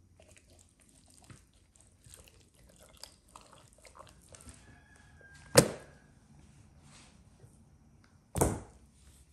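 A large knife chopping into a raw whole chicken on a wooden cutting board: faint knocks and handling sounds, then one sharp, loud chop about five and a half seconds in. A second, duller thump follows near the end.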